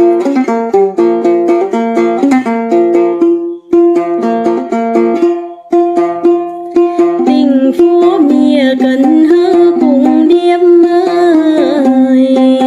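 Hát then music: quick, repeated plucked notes of a long-necked đàn tính lute, dropping out briefly twice in the first half. From about seven seconds in, a sliding, wavering melody line plays over the plucking.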